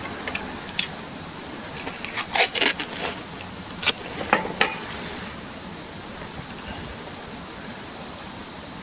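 A run of sharp knocks and clatters, like things being handled and set down, over a steady hiss. They are loudest in the middle and stop about two thirds of the way through.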